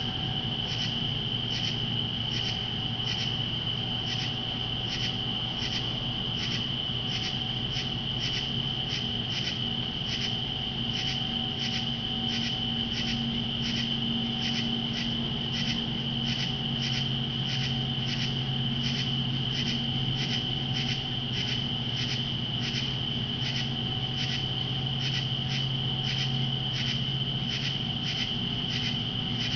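Night insect chorus: a steady high trill, with another insect calling in even pulses about twice a second, over a low steady hum.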